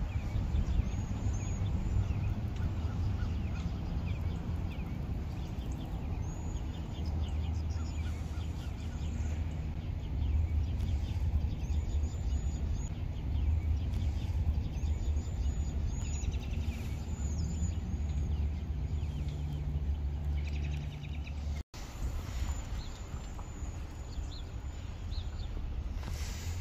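Small birds chirping in quick runs of short, high calls, over a steady low rumble.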